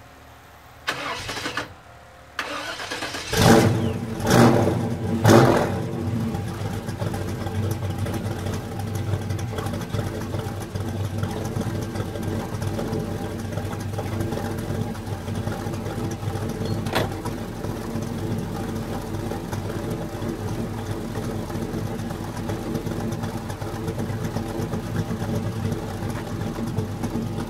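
1956 Chevrolet 3100 pickup's 383 stroker small-block V8 cranked on the starter, catching about three seconds in, revved three times, then settling into a steady idle.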